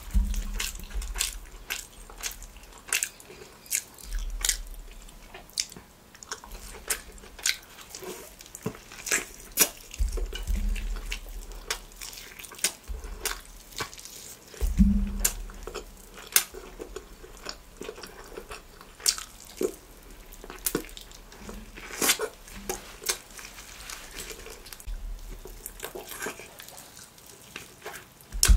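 Close-miked eating of a spicy chicken leg: biting and tearing meat off the bone and chewing it, with many sharp wet mouth clicks and smacks, several a second, and a few dull low bumps.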